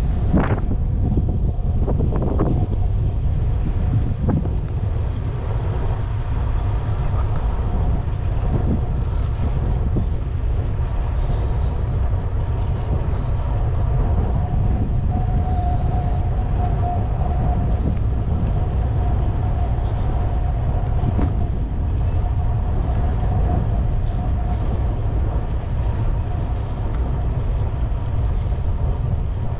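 Wind buffeting the microphone on a moving bicycle, a steady low rumble, with a few knocks in the first few seconds and a faint thin whine about halfway through.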